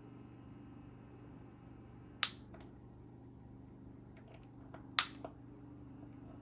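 Two sharp clicks about two and a half seconds apart over the steady low hum of a running cool mist humidifier.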